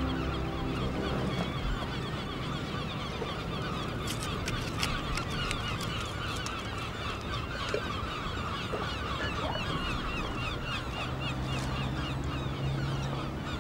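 A flock of birds calling continuously in a dense, chattering mass of short repeated calls, with a few light clicks in the middle.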